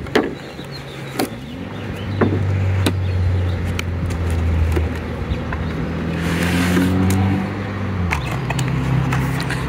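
Cardboard retail box being opened: several sharp clicks of the flap and packaging, then a short scrape as the inner cardboard tray slides out. Under it a motor vehicle engine hums steadily, changing pitch near the end.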